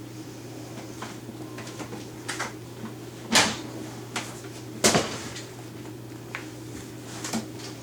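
Scattered knocks and clanks of hands and tools working on a dishwasher as it is fitted, with two louder bangs about three and a half and five seconds in, over a steady low hum.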